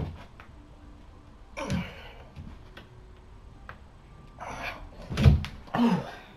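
Hard breaths and a grunt from a boy straining through pull-ups on a doorway pull-up bar, then a heavy thud about five seconds in as he drops from the bar onto the floor, followed by a short "oh".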